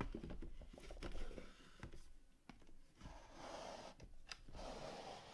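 Quiet handling sounds: scattered light clicks and taps, then a soft rubbing rustle from about three seconds in as a drawer of the collector's display cabinet is slid open.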